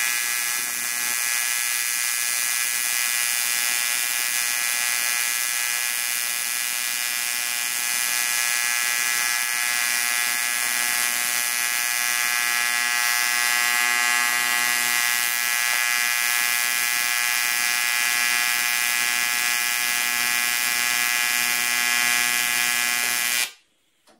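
AC TIG welding arc on cast aluminium, a steady loud buzz, welding a broken lug back onto a clamp. It cuts off near the end as the arc is broken.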